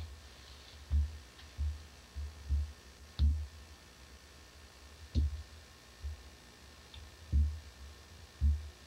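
About nine dull, low thumps at uneven intervals, a few with a faint sharp click, over a faint steady hiss. This is handling noise from a hand-held camcorder being panned across a picture.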